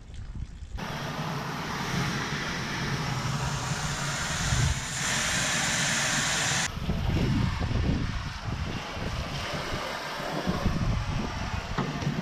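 Garden hose spray nozzle jetting water onto a stainless steel crawfish boiler and its perforated basket: a steady hiss of spray with splashing. It starts about a second in and gets louder for a couple of seconds around the middle.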